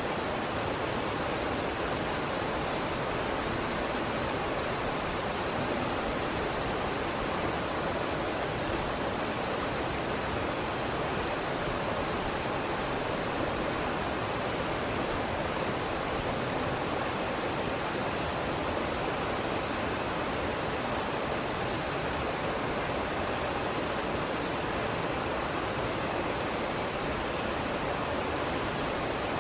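Steady rush of flowing water with a continuous high insect drone over it, and a brief run of faint, very high ticks about halfway through.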